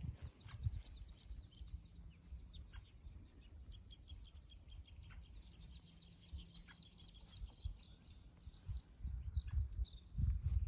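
Songbirds singing, with many short high chirps and a fast trill of repeated notes. Low thuds of footsteps come in near the end.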